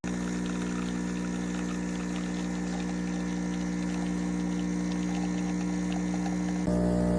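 De'Longhi Stilosa espresso machine's 15-bar pump switching on abruptly and running with a steady buzzing hum. Near the end it gets louder and its tone changes.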